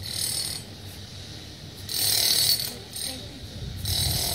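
Sledgehammer blows on the brickwork at the base of a water tower, heard from a distance. There are three strikes about two seconds apart, each a short harsh noise.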